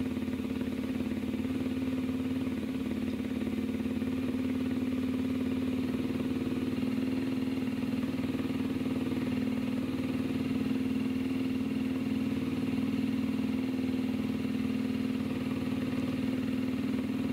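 Kawasaki Ninja 250SL's single-cylinder engine idling steadily on its stand, warming the engine oil before it is drained.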